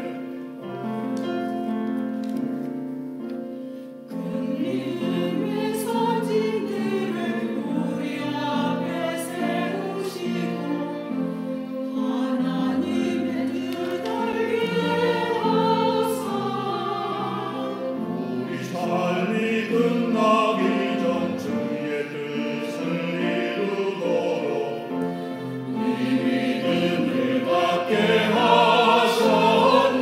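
Mixed church choir of men and women singing an anthem with piano accompaniment. It is softer for the first four seconds, then fuller, and builds louder toward the end.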